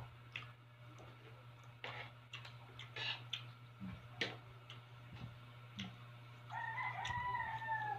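Scattered clicks and smacks of people eating by hand, then near the end a rooster crows once: a drawn-out call of about a second and a half that falls slightly at its close.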